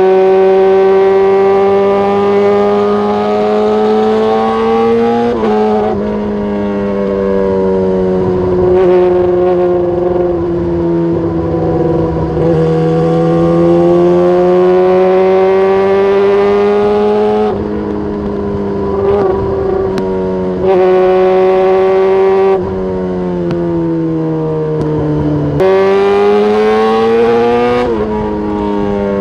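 Motorcycle engine with a very loud aftermarket exhaust running at steady, fairly high revs, its pitch drifting slowly up and down with several sudden drops.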